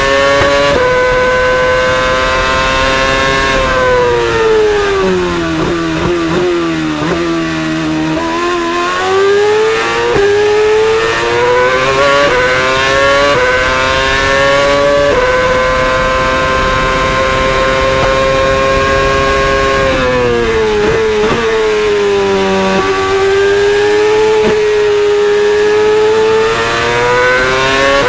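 2013 Mercedes Formula 1 car's 2.4-litre V8 heard onboard at high revs. The pitch drops in quick steps through several downshifts under braking twice, about four to eight seconds in and again around twenty seconds in, then climbs again through a run of upshifts.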